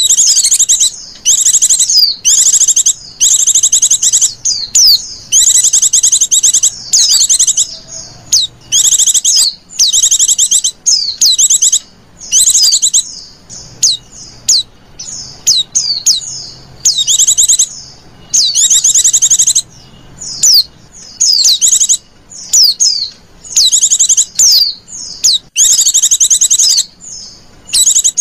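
Pleci (white-eye) song played back as a lure: short, loud, high-pitched bursts of rapid chirping trills, each under a second long, repeated about once a second with brief gaps.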